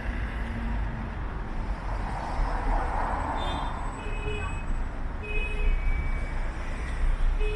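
Road traffic: vehicles running past with a steady low rumble, one passing more loudly about two to three seconds in. A few short, faint tones sound over it in the second half.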